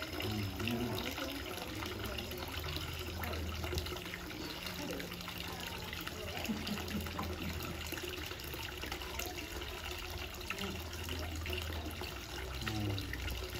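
Water running steadily down a metal chute.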